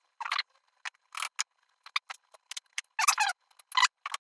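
Small machined metal gun parts being handled and fitted together during assembly: a scatter of short clicks and light taps, with a few brief rustling bursts.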